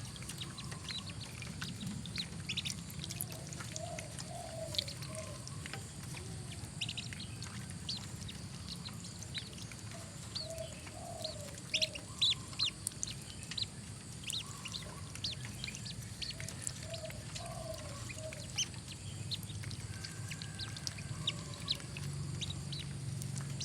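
Whistling duck ducklings peeping as they bathe: many short, high chirps scattered throughout, with short runs of lower calls every few seconds over a steady low hum.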